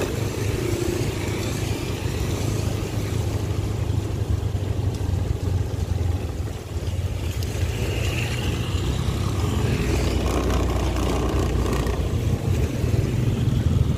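Motorcycle riding along a wet road: a steady engine drone mixed with rushing wind and tyre noise.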